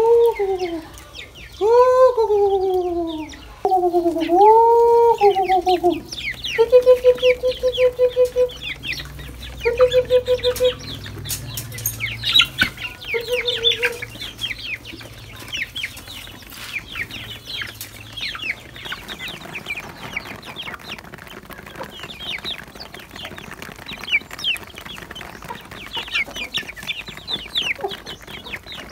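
A flock of young chickens feeding, with many short high peeps and clucks throughout. The first few seconds hold loud, drawn-out calls that rise and fall in pitch, followed by short steady pulsed calls until about fourteen seconds in.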